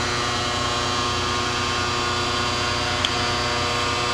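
Brown & Sharpe 1024U universal cylindrical grinder running with its headstock turning and its hydraulic table traversing: a steady machine hum made of several steady tones. A single light click comes about three seconds in.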